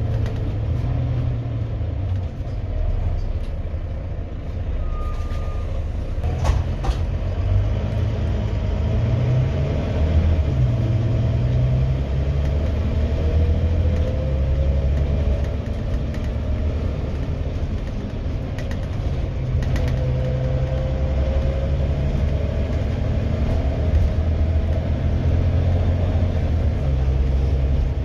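Volvo B9TL double-decker bus's six-cylinder diesel engine heard from the upper deck while driving, worked hard: a deep hum that steps up and down through the gear changes, with a faint rising transmission whine. A sharp click or rattle about six and a half seconds in.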